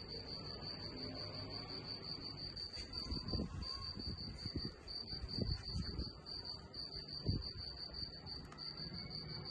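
Crickets chirping in a steady, high, pulsing trill that breaks off briefly a few times. Several dull low thumps come in the middle, the loudest about seven seconds in.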